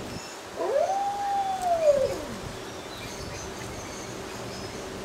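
Alaskan Malamute puppy howling once: a single long call that rises, holds for about a second, then falls away, starting about half a second in.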